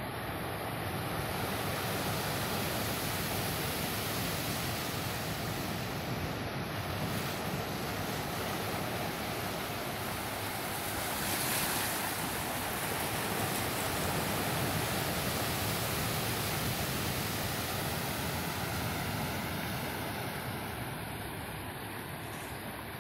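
Ocean surf washing in over rocks and foaming through channels into tide pools: a steady rush of churning water that swells about halfway through as a bigger wave breaks in.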